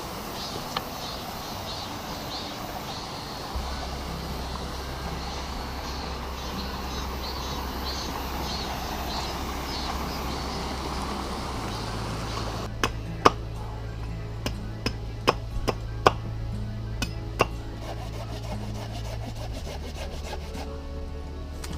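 Background music with long held low notes over a steady rushing noise, then about ten sharp knocks, irregular and a fraction of a second to a second apart, in the second half.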